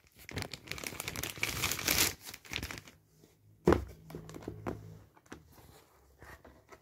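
Plastic packaging wrap crinkling as the Chromebook's detachable keyboard cover is pulled out of it, with one sharp knock a little past halfway, then quieter handling.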